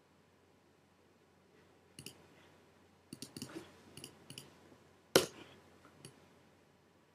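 Scattered clicks from a computer keyboard and mouse: two about two seconds in, a quick cluster a second later, a few more, then one louder click just after five seconds.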